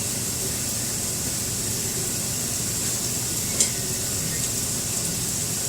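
Butter and food sizzling on a hot flat-top grill: a steady, even hiss, with a light tap about three and a half seconds in.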